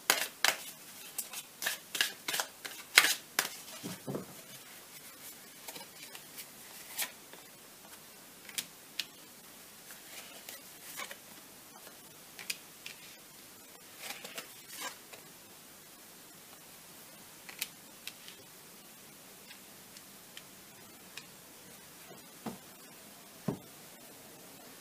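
Lenormand cards handled by hand: a quick run of card clicks in the first few seconds as the deck is shuffled, then scattered taps and slides as cards are drawn and laid down on a plastic mesh mat.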